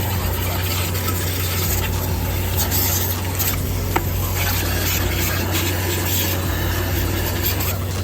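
Scrubbing and rubbing while a dirty vacuum cleaner is cleaned by hand, over a steady low hum, with a single click about halfway through.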